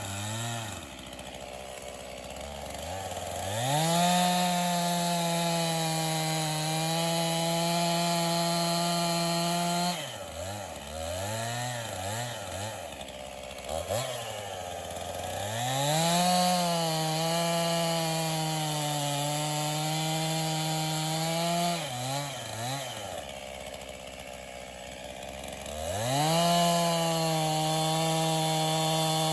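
50cc two-stroke chainsaw bucking an ash log into firewood rounds. The engine revs up and holds steady at full throttle through three cuts, and drops back between them with a few short throttle blips.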